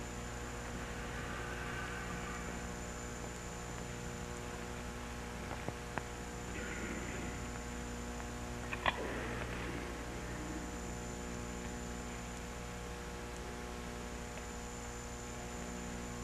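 Steady electrical mains hum on an old recording, with a few faint clicks.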